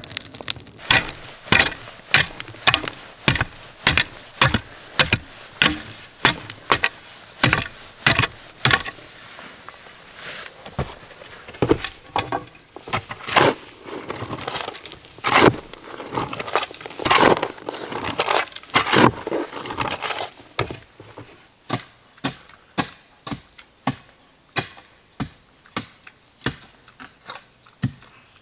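A tool striking wood over and over, about one and a half blows a second. The blows are sharp and cracking, loudest in the middle stretch and lighter near the end.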